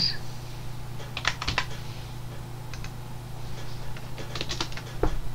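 Typing on a computer keyboard: a few short bursts of keystrokes, over a steady low hum.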